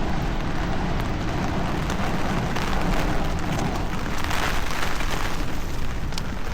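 Wind buffeting the microphone in gusts over the steady hiss of rain, with a heavy low rumble.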